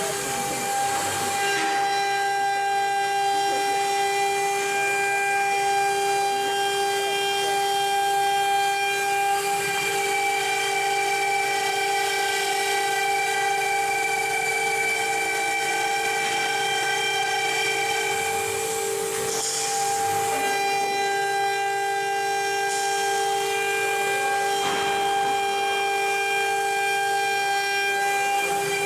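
CNC plasma cutter cutting sheet steel: the arc gives a steady whistling whine over a hiss. Brief changes in the sound come about a second in, around 19 to 20 seconds in, and again about 25 seconds in.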